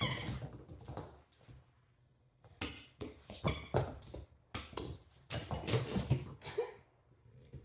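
A puppy playing with a ball on the floor: a run of irregular knocks, thumps and scrapes, most of them from about two and a half seconds in until near the end.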